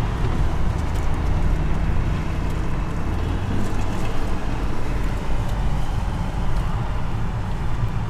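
Vehicle engines running at low speed with a steady low rumble and road noise, as vehicles circle slowly at parking-lot pace.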